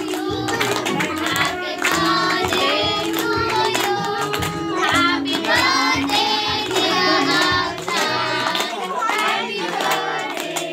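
A group of children singing a birthday song together, with clapping and music.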